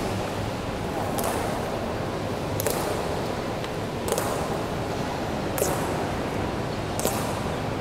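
Honor guards' boot heels striking the marble floor in unison during a slow ceremonial march: five sharp, echoing clacks, about one every second and a half, over the steady hum of the crowded stone hall.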